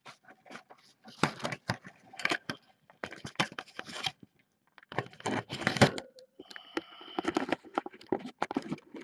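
Handling noise: irregular scraping, rubbing and rustling of hands against the camera and its microphone, with crinkling and tearing sounds in among it.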